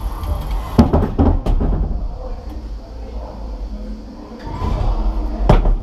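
A few sharp knocks and clunks, several in quick succession about a second in and one more near the end, over a low steady rumble.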